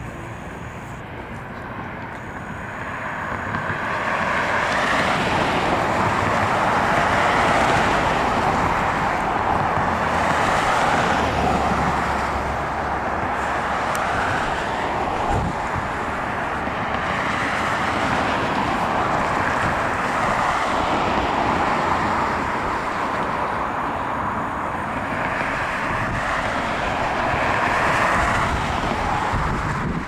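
Road traffic: cars passing on a multi-lane road, their tyre noise swelling and fading as vehicles go by, building up about four seconds in.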